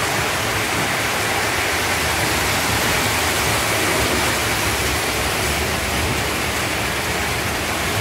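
Several toy trains (an American Flyer S gauge train on the trestle and Lionel O gauge trains below) running at once on metal track: a steady, even rumble and whir of wheels and electric motors.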